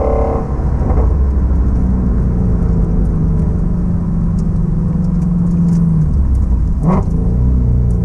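2016 Shelby Mustang GT350's 5.2-litre 'Voodoo' V8 heard from inside the cabin, running at low revs in a gentle cruise. The engine note holds steady, eases off about six seconds in, then gives a brief sharp blip about a second later.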